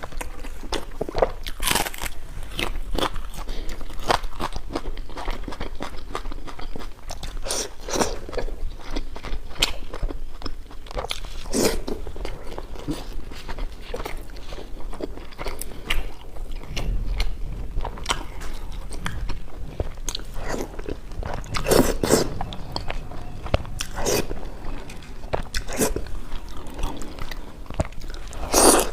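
A person biting and chewing crunchy food close to the microphone, with irregular sharp crunches throughout.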